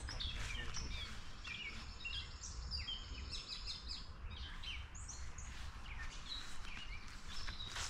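Wild songbirds chirping and singing, many short calls overlapping, over a low steady rumble.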